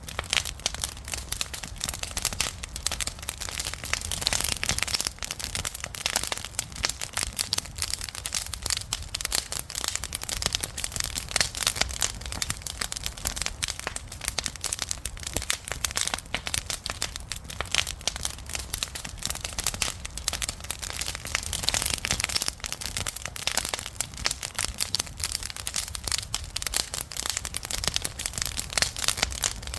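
Wood fire crackling and popping continuously, a dense stream of sharp snaps over a low rumble of burning.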